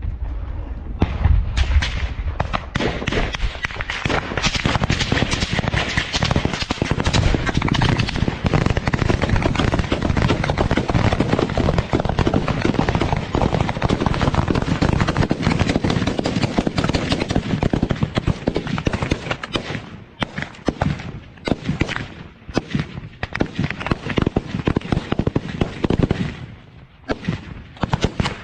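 Sustained automatic gunfire in rapid, dense bursts, thinning out in the last third into scattered shots.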